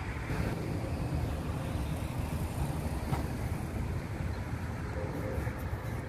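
Wind buffeting the microphone: a steady, gusting low rumble.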